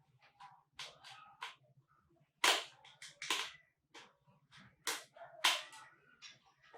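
Sharp clicks and snaps of the laptop's hard plastic case and parts being handled and worked loose during disassembly, a handful of them spaced irregularly, the loudest about two and a half and five and a half seconds in.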